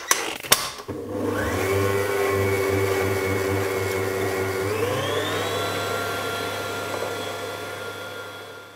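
A few clunks as the stand mixer's head is set down, then its electric motor starts about a second in and runs steadily, beating creamed butter and icing sugar as an egg is added. Its whine steps up in pitch about five seconds in.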